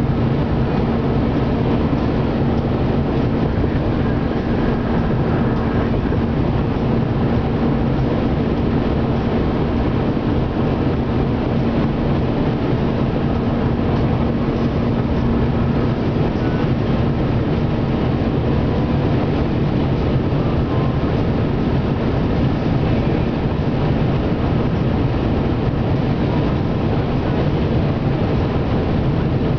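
Steady road and engine noise heard inside a car driving on a highway, with a low steady hum that fades about two-thirds of the way through.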